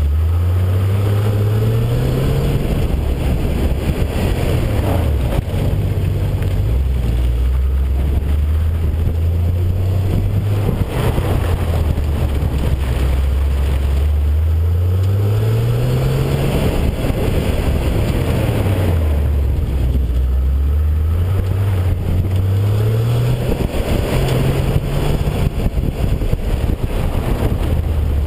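Porsche engine heard from inside the cabin while the car is driven hard, its pitch repeatedly climbing under acceleration and dropping back as the driver lifts off, several times over.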